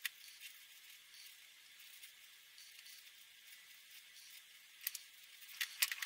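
Faint scratching hiss of a Promarker felt-tip marker drawn across paper, with a few sharp clicks near the end.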